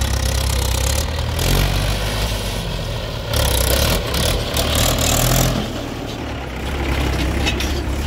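Mahindra 575 DI tractor's diesel engine running as it pulls a trailer loaded with soil. It grows louder from about three to five and a half seconds in.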